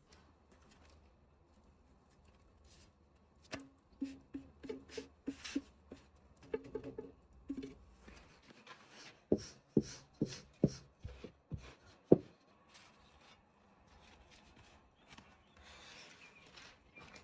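Knife chopping on a cutting board: a run of lighter, ringing taps, then about eight harder knocks a few tenths of a second apart, the last one the loudest.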